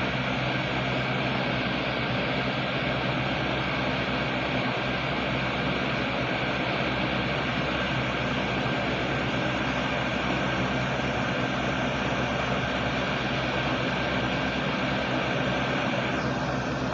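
Steady mechanical hum with a broad hiss, unchanging in level; the higher part of the hiss thins out shortly before the end. No bird calls stand out.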